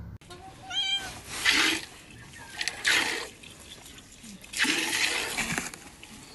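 A cat meows once, then a cow is milked by hand: short hissing squirts of milk from the teat, a few seconds apart, aimed at the cat.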